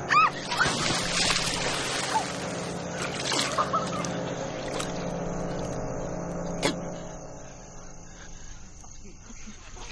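A person falls into a shallow pond with a loud splash, then water sloshes and splashes as she thrashes about. The splashing dies down over the last few seconds.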